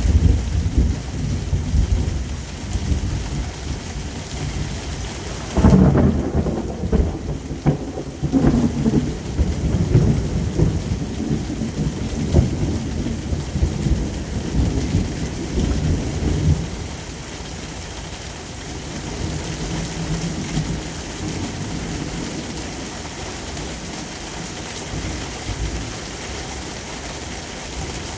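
Thunderstorm: heavy rain hissing steadily while thunder rumbles deep and low. A sudden louder peal about six seconds in rolls on for about ten seconds, then fades back to the rain alone, with a faint rumble later.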